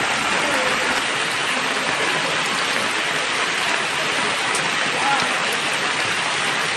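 Heavy rain falling steadily onto floodwater, an even hiss.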